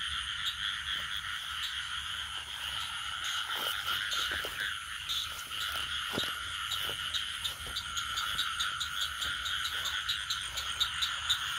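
Frogs calling in a steady chorus from a wet rice field, with a few soft rustles or thuds of movement through the stubble.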